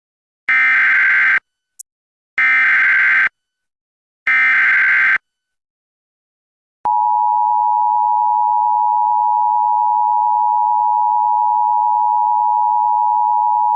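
Emergency Alert System SAME header: three short bursts of warbling digital data tones, each just under a second, about two seconds apart, with a brief click between the first two. About seven seconds in, the steady two-tone EAS attention signal starts.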